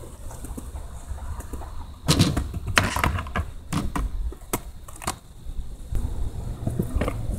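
Skateboard wheels rolling on concrete. From about two seconds in comes a series of sharp clacks and knocks as the board hits a small quarter-pipe ramp and comes back down onto the ground.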